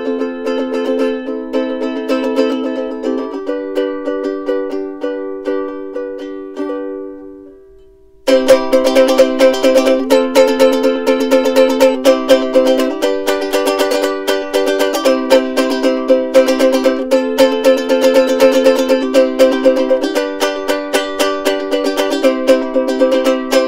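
Soprano ukulele strumming chords. The first tune fades out about eight seconds in, and a louder one starts straight after.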